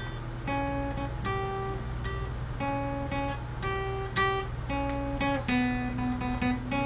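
Acoustic guitar music: strummed chords in a steady rhythm, a new chord roughly every second.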